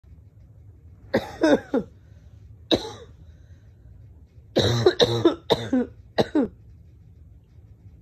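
A person coughing hard in repeated bouts from laryngitis: three quick coughs about a second in, a single cough, then a run of four more about four and a half seconds in.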